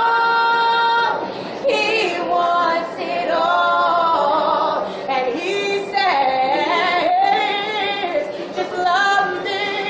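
A woman singing a cappella. She holds one long note for about the first second, then sings bending, ornamented runs that rise and fall in pitch.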